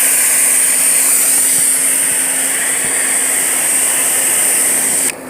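Gas pressure washer spraying water at about 800 PSI onto an RV roof: a steady, loud hiss of the jet with a low engine hum under it. The spray cuts off suddenly near the end.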